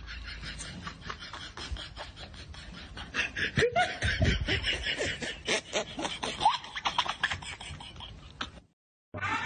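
Laughter in quick, choppy pulses, getting louder about three seconds in and cutting off suddenly near the end.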